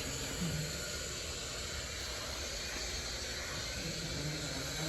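Steady rushing noise inside an R68 subway car on the D train, even and unbroken.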